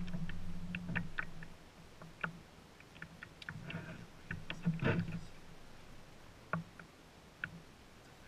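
Scattered light clicks and knocks of fishing rods and gear being handled in a small plastic boat. A steady low hum cuts out about a second and a half in.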